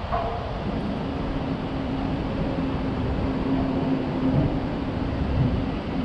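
Steady low drone of traffic on the highway bridge overhead, under a rumble of wind on the microphone.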